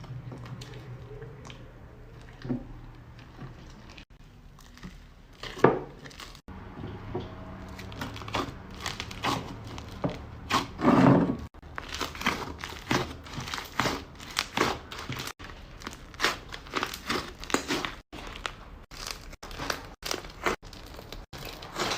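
Slime being squeezed and worked by hand, making crinkling, crackling pops, sparse at first and coming in quick runs from about a third of the way in.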